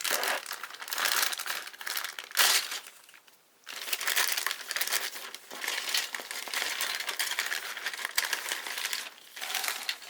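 Plastic bag crinkling as model kit sprues are handled and unwrapped, with a brief pause about three seconds in.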